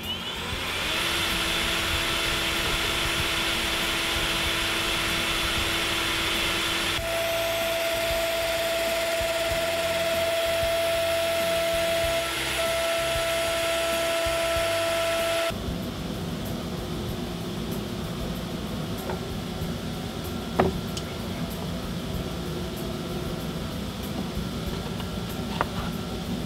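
CNC router spindle spinning up with a rising whine, then running at a steady high whine with a loud rushing noise as the bit cuts a circle into plywood. About halfway through it cuts off abruptly, leaving a quieter steady noise with a couple of sharp clicks.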